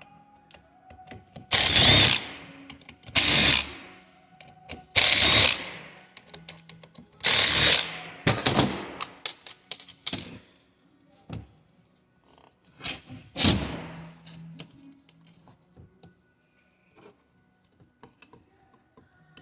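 Plastic end cover of a coolant flow control valve being worked off its housing: about seven short, loud bursts of scraping and clacking plastic, the last about 13 seconds in, with small clicks between them.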